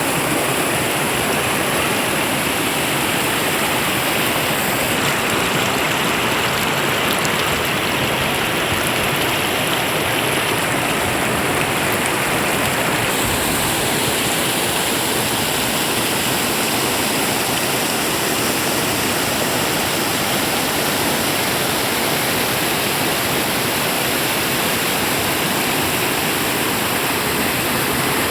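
Swift, clear river water rushing over its bed in a steady, unbroken hiss.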